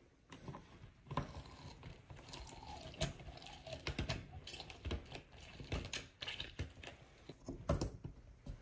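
Half a lemon being squeezed for its juice: a run of irregular small clicks and creaks, with a brief faint squeak.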